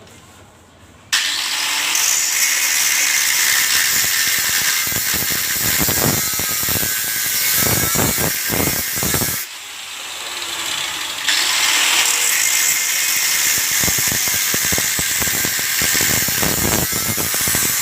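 Angle grinder cutting into a vacuum cleaner motor to get at its copper windings: a loud, hissing cut that starts suddenly, eases off around the middle and then bites in again, with rattling chatter as the disc catches the metal.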